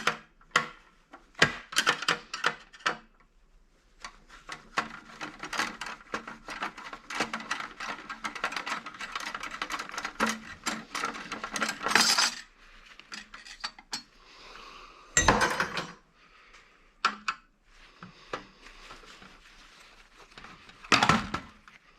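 Small metal parts clinking and rattling while scrap is worked apart by hand: scattered clicks, then a dense run of rapid metallic clicks with a ringing note for several seconds, and two heavier knocks near the end.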